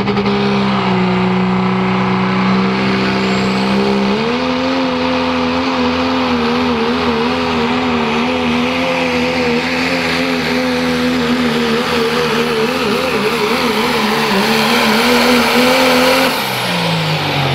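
Diesel 4x4 pickup's engine run hard under full load while dragging a weight-transfer pulling sled. It holds a steady pitch, steps up to a higher pitch about four seconds in and wavers there, then falls away as the throttle is let off near the end.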